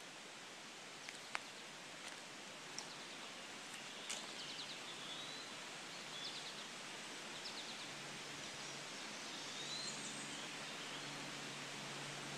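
Quiet riverside ambience: a steady outdoor hiss with birds chirping now and then and a few sharp clicks in the first few seconds. A faint low hum comes in about two-thirds of the way through.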